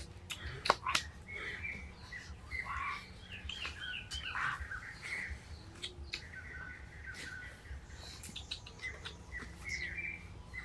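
Forest birds calling and chirping, with short repeated chirps and warbling notes. A sharp click sounds twice a little under a second in.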